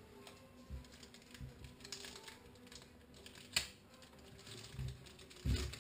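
Light clicks and rustles of hands working a disposable plastic piping bag as icing is put into it, with one sharper click about three and a half seconds in and a low bump near the end.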